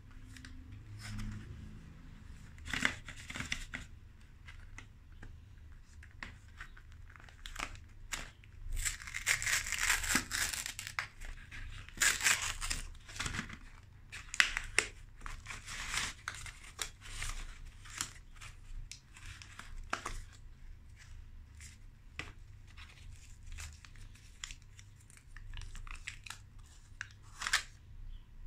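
Cardboard box of Kinder Chocolate bars being torn open, then a bar's foil-lined paper wrapper peeled and crinkled off; irregular crackling and tearing, loudest in a run of bursts about a third of the way in.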